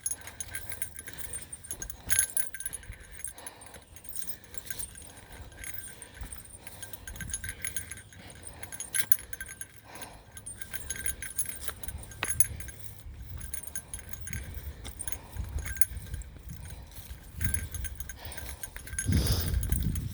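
A bear bell jingling over and over as its wearer walks up a steep slope, over heavy breathing and low rumbling noise. The breathing or rushing noise grows louder near the end.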